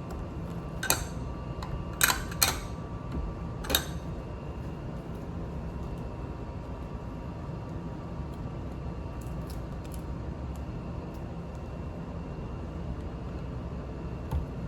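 Small hard plastic clicks and taps from LEGO pieces being handled, four sharp ones in the first four seconds, over a steady low hum.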